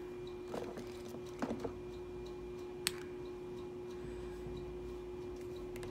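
A few soft rustles and light clicks from a plastic wrestling action figure being handled, with one sharper click about three seconds in. Underneath run a steady hum and a faint regular ticking about twice a second.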